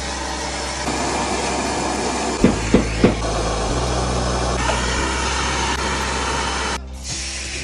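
Handheld gas torch burning with a steady hiss as it heats a copper pipe for sweating a soldered fitting. The hiss cuts off suddenly near the end, and three sharp clicks come in quick succession a little before halfway.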